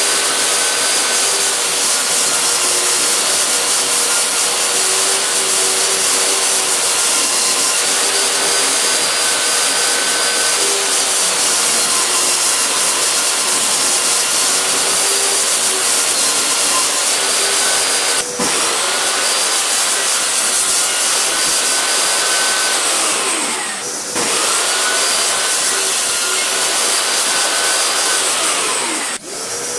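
Table saw running and cutting strips of wooden picture-frame moulding: a steady, loud motor-and-blade noise whose pitch dips and recovers now and then as the blade takes the wood.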